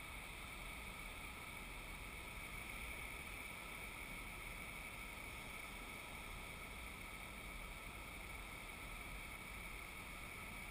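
Steady faint background hiss with a low rumble, unchanging and without any distinct event.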